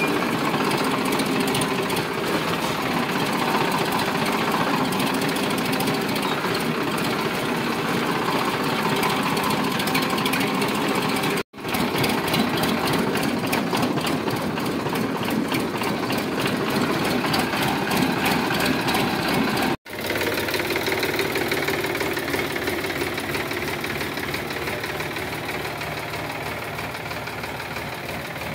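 Sonalika DI 745 III tractor's diesel engine running steadily while hauling a heavily loaded trailer. The sound drops out for an instant twice, at edit cuts, and after the second cut the engine runs a little lower and quieter.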